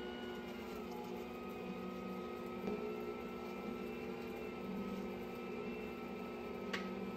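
Electric stand mixer running steadily with a motor hum while it mixes bread dough in its stainless steel bowl, with one short click near the end.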